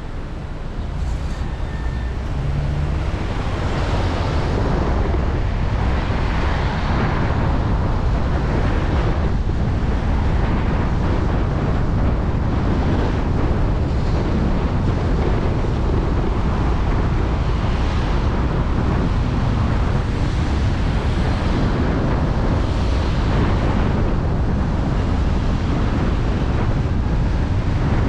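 Wind buffeting the microphone of a camera on a moving car, mixed with road and tyre noise: a steady rush with a heavy low rumble that swells a few seconds in as the car picks up speed.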